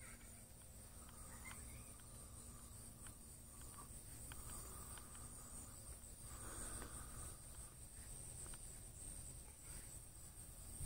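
Faint, steady high-pitched chirring of insects, with a few soft clicks.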